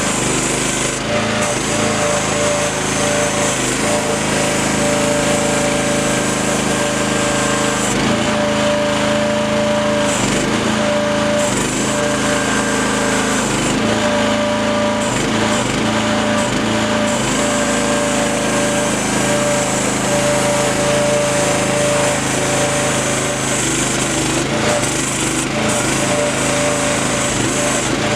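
Miva VA08 mini excavator running steadily, with a whine that comes and goes several times over the engine's steady rattle.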